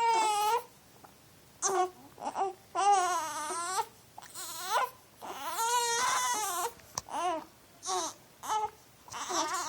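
A young child crying and whining in a string of about ten short wails, the pitch bending up and down, with brief pauses between them.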